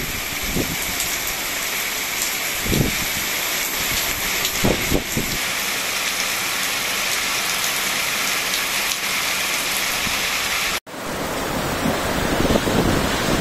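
Heavy rain pouring down, a steady dense hiss of rain on roads and pavement with a few low thumps. It cuts out briefly about eleven seconds in, then the rain returns with wind buffeting the microphone.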